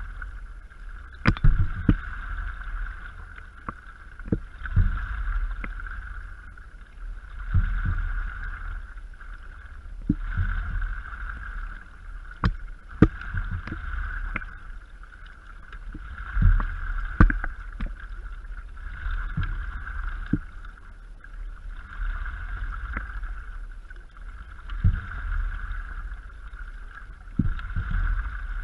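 Stand-up paddleboard under way on calm water, with a paddle stroke about every two and a half seconds: water splashing and gurgling at each stroke, with sharp knocks from the paddle and board. A low rumble from wind and board motion sits on the board-mounted microphone.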